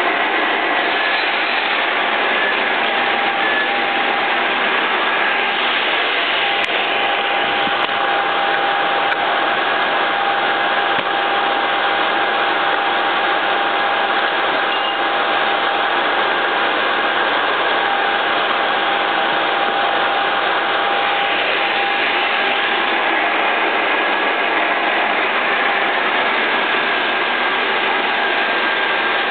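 Soviet 2L614 horizontal boring machine running steadily as it drills a 25 mm bore in steel at 250 RPM: constant machine noise with a steady whine.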